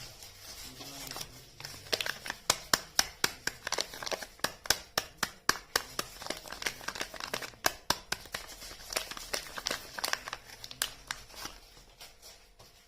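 Soap packaging being unwrapped by hand: paper or plastic wrapper crinkling and tearing, with sharp crackles several times a second that thin out near the end.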